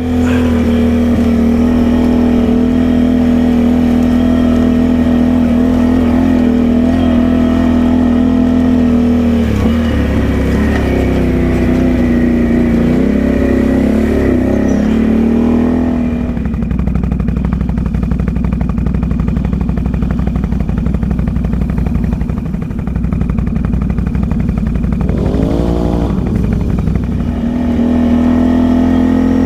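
Can-Am Outlander ATV engine running while riding along a trail at steady throttle. About a third of the way in the pitch drops and wavers. It then settles into a lower, rougher note, with a brief rev up and back down before picking up again near the end.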